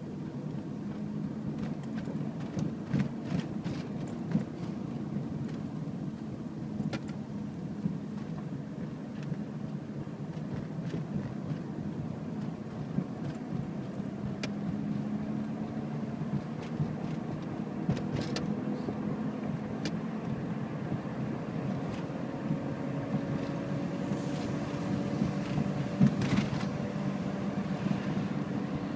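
2006 Toyota Prius's 1.5-litre four-cylinder petrol engine running steadily, with scattered sharp ticks over the drone. The owner reports that it runs loud and rough with a knock about 30 seconds after the engine starts, and hopes a valve adjustment will cure it.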